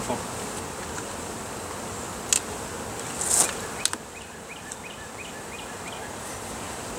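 Steady buzzing of honeybees swarming over an open hive box packed with bees, with a few sharp clicks about two and three and a half seconds in.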